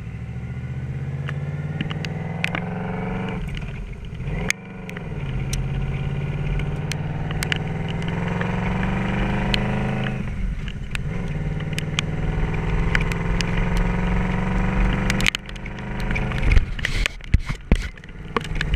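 2006 Yamaha Royal Star's V4 engine pulling through the gears, its pitch climbing in each gear and dropping at the shifts about four, ten and fifteen seconds in. Over the last few seconds sharp knocks and crackles break in over the engine.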